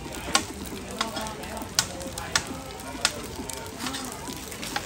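Cubes of chai tow kway (fried radish cake) sizzling in oil on a wide flat metal pan. Metal tongs and a spatula clink and scrape against the pan about once a second as the cubes are turned.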